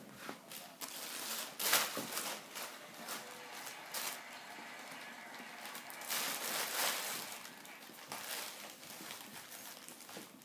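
Plastic bag crinkling and rustling as a Staffordshire bull terrier puppy paws, treads on and chews at it, in irregular bursts, loudest about two seconds in and again around six to seven seconds in.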